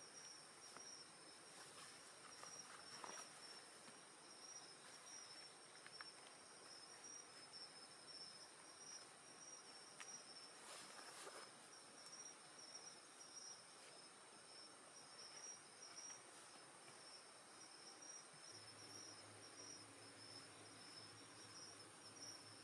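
Summer night insects calling steadily in a high, pulsing trill, with a few faint clicks and crackles now and then. A low hum comes in near the end.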